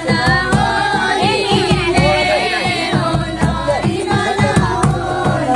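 Several voices singing a folk song together, with regular drum beats underneath.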